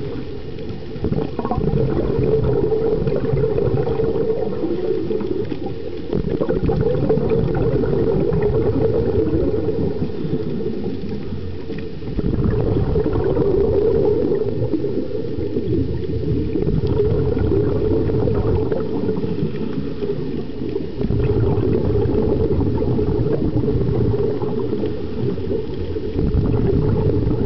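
Scuba diver's regulator heard underwater: bubbling rushes of exhaled air, about five of them several seconds apart, over a steady low water rumble.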